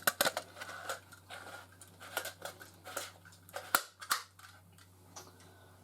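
Light clicks and taps of a hard plastic fire detector and its base plate being handled, irregular, with one sharper click near the middle, over a faint steady hum.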